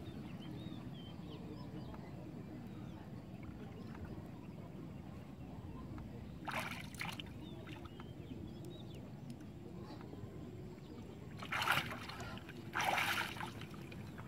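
River water sloshing and splashing against a wooden canoe as a man reaches down into the water beside it, with three short louder splashes, one about halfway and two near the end, over a steady low background noise.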